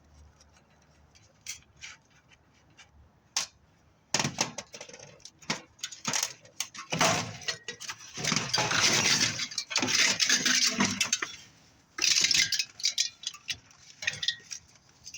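Furnace sheet-metal panel and coil being worked loose and pulled out: a few light clicks, then metal scraping and clanking for several seconds, with another short burst of clatter near the end.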